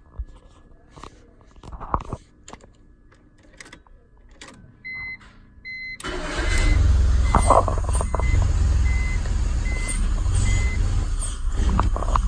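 A few clicks and knocks and two short high beeps, then about six seconds in a BMW E46 engine starts and runs at idle, the car whose owner is chasing a rough idle and stalling. A short high chime beeps about every second for a few seconds after the engine starts.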